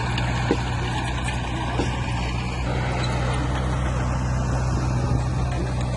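Heavy diesel engine of earthmoving machinery running steadily with a low, even hum, with a couple of light knocks.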